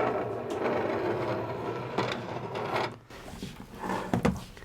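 Metal case parts of an Anan 200D transceiver scraping and rattling as the enclosure is pried and worked apart by hand, for about three seconds, then a few light clicks near the end.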